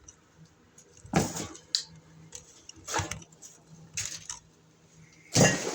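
Small metal parts or tools being handled, in a few short bursts of clinking and rattling. The longest and loudest burst comes near the end.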